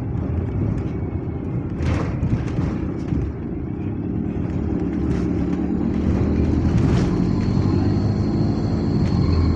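Bus engine running as the bus drives, heard from inside the passenger saloon, with a steady low hum that builds and gets louder from about four seconds in as the engine pulls harder. A single knock comes about two seconds in.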